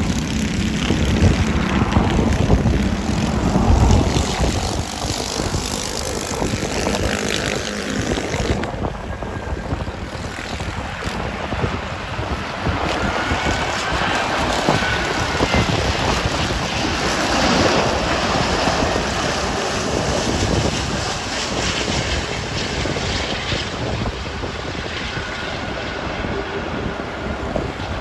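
Airbus A380's four Rolls-Royce Trent 900 turbofan engines on final approach: a steady jet rumble as the airliner passes low to land, with a faint engine whine rising and falling around the middle.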